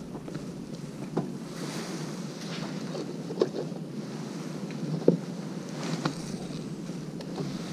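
Steady wind and water ambience with a few small clicks and knocks, the sharpest about five seconds in.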